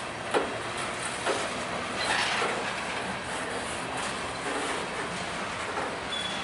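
Covered hopper cars of a freight train rolling past, a steady rumble of wheels on rail with a few sharp clacks as wheels hit rail joints. A brief high wheel squeal comes near the end.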